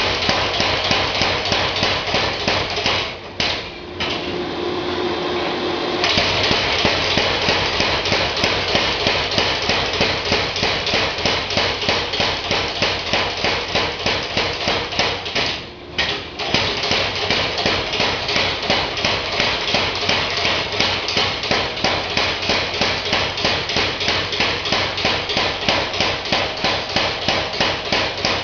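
Mechanical power hammer striking hot steel in a rapid, even rhythm, drawing down a tapered axle lynch pin. The blows stop briefly twice, the first time giving way for a couple of seconds to a steadier running sound before the hammering resumes.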